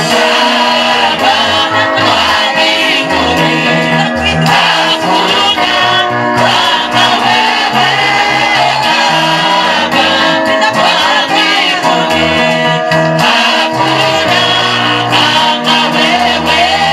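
Gospel praise and worship music: singing over a band with a steady moving bass line.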